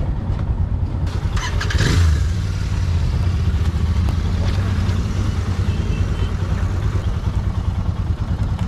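Kawasaki Versys 650's parallel-twin engine running steadily while riding, under a rush of wind noise. A brief louder rush comes about a second and a half in.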